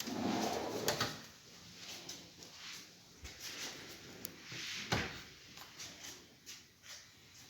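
Aluminium kitchen cabinet drawers or doors being slid and shut: a sliding rush at the start and a few sharp knocks, the loudest about a second in and about five seconds in.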